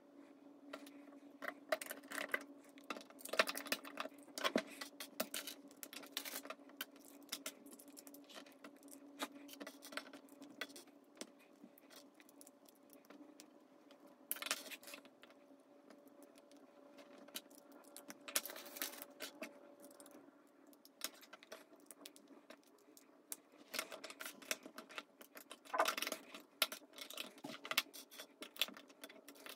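Plastic Lego bricks clicking and rattling as pieces are sorted from a loose pile on the tabletop and snapped together. The clicks come in short irregular clusters over a faint steady hum.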